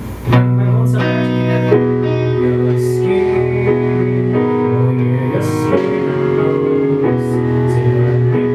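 Music led by guitar over a strong, steady bass, with held notes that change every second or so.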